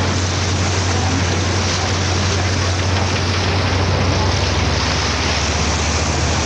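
Tour boat's engine running with a steady low hum, under the constant rush of propeller wash churning the water at the stern.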